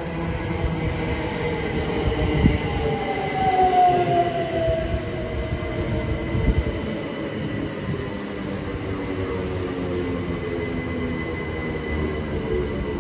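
c2c Class 357 Electrostar electric multiple unit running in along the platform and slowing: a falling whine from the traction equipment over the rumble of the wheels on the rails. There are a few sharp knocks from the wheels, the first about two seconds in.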